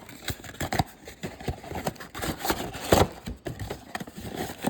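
Irregular clicks, taps and rustles of a cardboard trading-card box and its packaging being handled on a tabletop.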